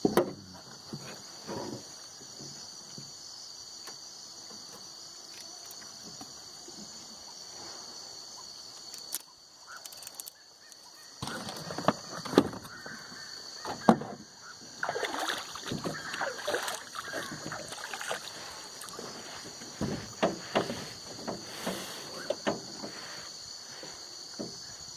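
Night insect chorus, a steady high shrill, with scattered knocks and short animal calls over it, busiest in the second half.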